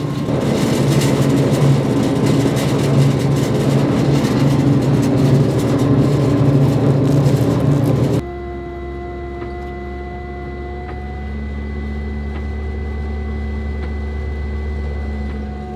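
Snobear tracked ice-fishing vehicle driving over the ice, heard from inside the cabin: a loud, rough engine and track rumble that drops abruptly about eight seconds in to a quieter, steady engine hum with a faint whine.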